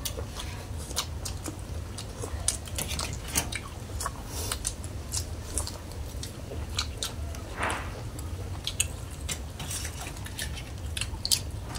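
People eating from a shared metal tray: spoons clinking and scraping against the tray, with chewing. It comes as many short, irregular clicks over a steady low hum.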